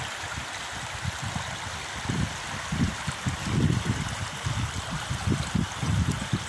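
Shallow, stony River Wear running fast over the stones: a steady rushing hiss, with irregular low rumbles underneath.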